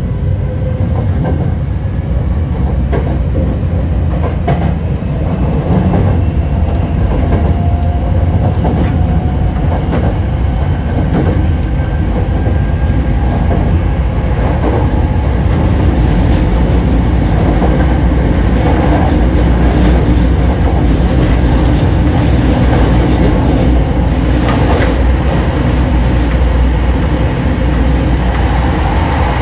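Running sound of Hokushin Kyuko electric train 7055F: a whine rises in pitch over the first several seconds as the train gathers speed. It then runs on with a steady low rumble and the clickety-clack of the wheels over rail joints.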